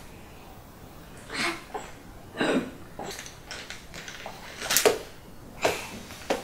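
A handful of short, breathy huffs and soft voice sounds, roughly a second apart, over quiet room tone.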